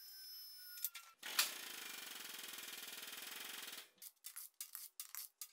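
Cordless impact wrench hammering steadily for about two and a half seconds, undoing a wheel nut, then cutting off; a run of short clicks and taps follows.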